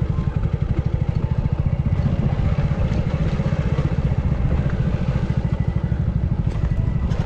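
Hero Splendor motorcycle's small single-cylinder four-stroke engine running steadily with an even, rapid low pulse.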